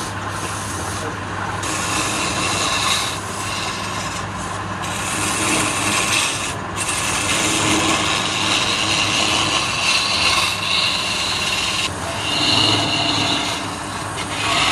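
Wood lathe running with a hand-held turning chisel cutting into the spinning wooden blank: a continuous scraping hiss of shavings over the lathe's steady low hum. The cutting swells and eases as the tool is pressed and lifted, dropping out briefly several times.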